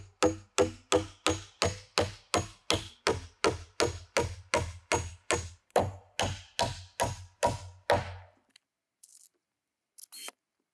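Steel claw hammer driving nails into pine framing boards: quick, evenly spaced blows, about three a second, each ringing briefly, stopping about 8 seconds in. A few faint clicks follow near the end.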